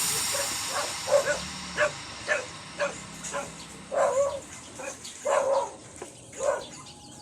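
A dog barking repeatedly in short, sharp barks, roughly two a second and unevenly spaced.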